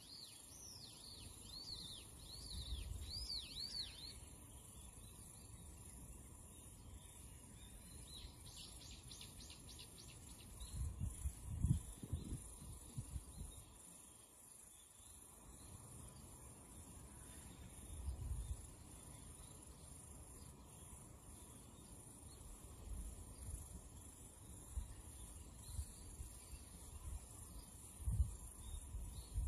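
Faint background with a bird chirping a quick run of rising-and-falling notes in the first few seconds and again briefly about a third of the way in, over a steady high hiss. A few soft low knocks as the boiled spiny lobster and crab pieces are moved about in the aluminium pot.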